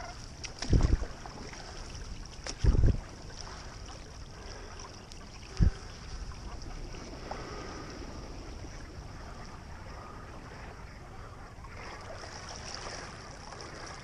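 Stand-up paddleboard paddled across calm water: a steady low wash of water noise, broken by three dull thumps a couple of seconds apart in the first six seconds.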